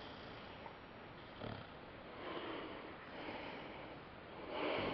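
A sleeping puppy snoring softly, a breath every second or so, the last one near the end the loudest.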